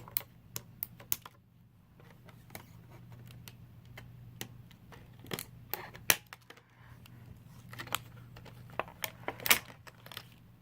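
Irregular clicks and taps of small plastic Beyblade parts and their packaging being handled and unpacked, over a steady low hum.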